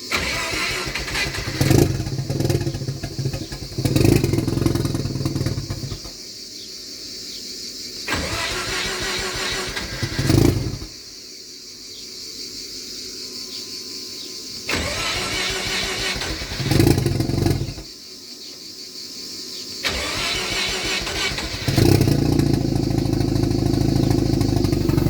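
Car engine on a freshly revised ECU tune running rough: it catches and runs for a few seconds at a time with short throttle blips, then drops away, several times over. It won't rev or stay running, which the owner takes for a lean mixture.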